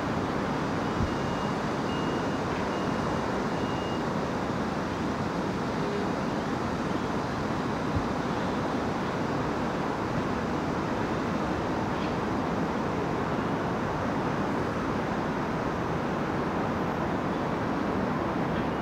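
Steady traffic and heavy-truck engine noise on a city road, with no distinct pitch and a few faint knocks.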